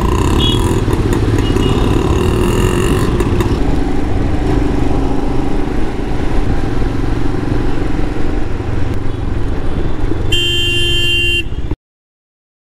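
Royal Enfield Himalayan's 411 cc single-cylinder engine running steadily under way in city traffic, with road and wind noise. Near the end a vehicle horn sounds for about a second, then the sound cuts out to silence.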